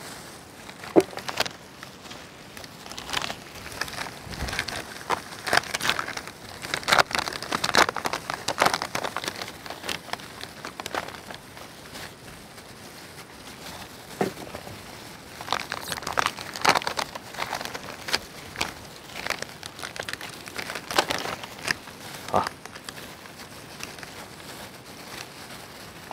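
Plastic and foil chocolate-bar wrappers crinkling and rustling as they are torn open and unwrapped by hand, with a few sharper clicks.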